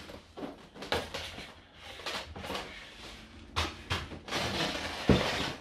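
Large cardboard box being handled and pulled apart: cardboard rustling and scraping, with several knocks and bumps, the loudest about a second before the end.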